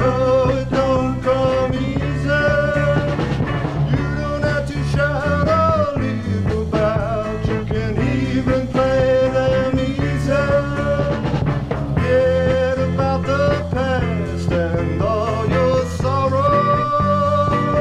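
Rock band playing an upbeat song, a lead melody of held, wavering notes over bass and a steady drum beat.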